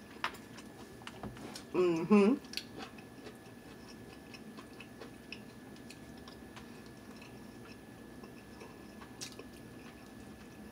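Close-up mouth sounds of a person chewing a mouthful of chicken curry and rice, with faint scattered small clicks. A short vocal sound about two seconds in is the loudest moment.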